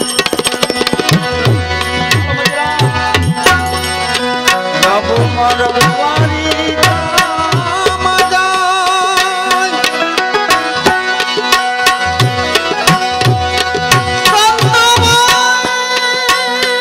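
Indian devotional music carried by tabla, its bass drum strokes sliding down in pitch, over steady held notes of a melodic accompaniment.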